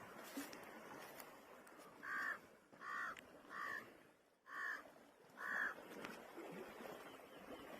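A bird calling five times, short calls spaced under a second apart, over a steady background noise.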